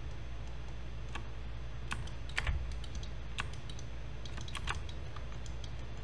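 Computer keyboard keys and mouse buttons clicking irregularly, a few at a time, over a low steady hum.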